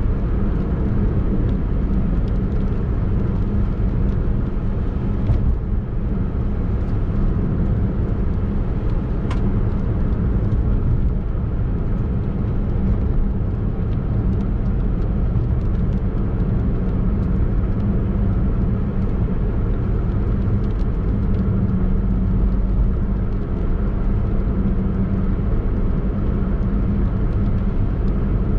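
Steady driving noise of a Daihatsu Mira e:S kei car cruising at constant speed: tyre and engine noise with a low, even drone.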